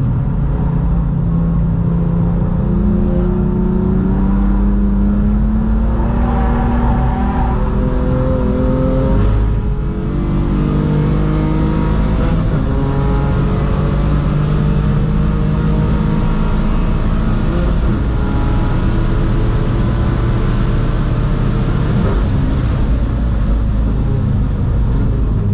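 BMW M3 F80's twin-turbo inline-six pulling hard at track speed, heard from inside the cabin. Its note rises steadily, drops briefly about ten seconds in, then climbs again.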